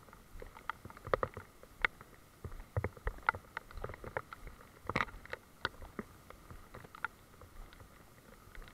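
Walking a wet forest trail in rain: irregular clicks, knocks and drips from footsteps, brushed undergrowth and raindrops, over a faint steady hiss. The sharpest knock comes about five seconds in.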